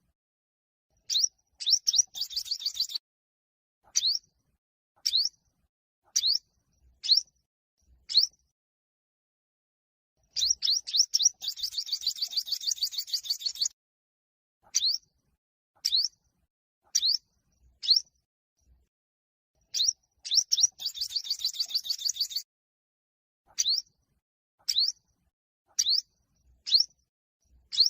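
Olive-backed (yellow-bellied) sunbird singing. Sharp, high, upward-slurred notes come about one a second, broken three times by a fast, rapid trill lasting one to three seconds.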